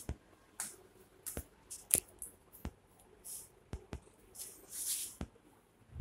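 Kittens scuffling and play-fighting on a hard concrete floor: scattered light taps and clicks with short scratchy rustles, a longer rustle about four and a half to five seconds in.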